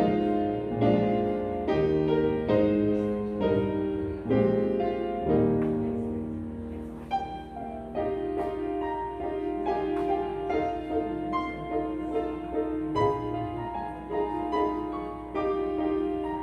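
Solo piano playing a slow, quiet prelude: chords struck about once a second at first, then held chords with a higher melody moving above them from about seven seconds in.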